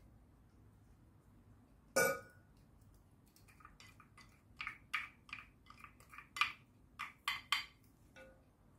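A sharp glass clink with a short ring, then a quick, irregular run of scrapes and taps as a wooden spoon scoops honey-steeped ginger out of a small glass into a glass pot.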